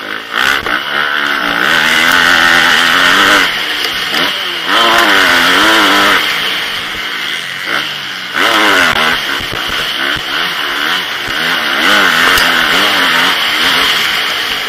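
Motocross bike engine heard from the rider's helmet camera, revving hard and then dropping off again and again as the rider opens the throttle, shifts and shuts off for corners, with the pitch climbing and falling several times and brief cuts about three and a half, six and eight seconds in.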